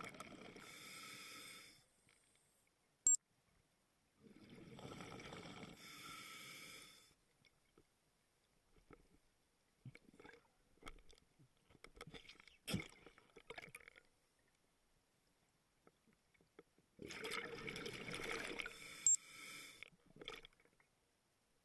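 Scuba regulator exhaust: a diver breathing out three times, each a two-to-three-second burst of bubbles, with quiet gaps between. Two sharp clicks stand out, one a few seconds in and one near the end.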